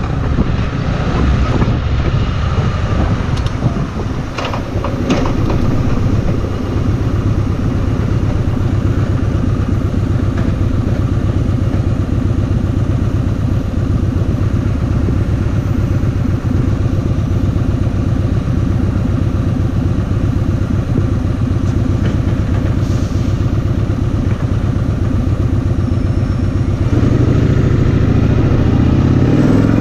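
Kawasaki Vulcan 2000's big V-twin engine running steadily under way, with wind and road rush. The engine gets louder near the end.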